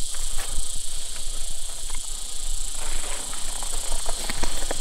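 Insects droning in a steady high hiss, with scattered small clicks and rustles.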